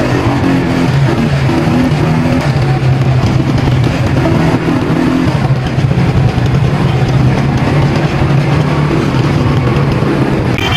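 Small vehicle engine running steadily, a continuous loud drone with a noisy rush over it.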